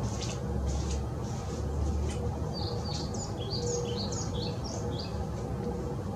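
European pied flycatcher singing: one quick phrase of short, high notes stepping up and down, starting about halfway through, over a steady low background rumble.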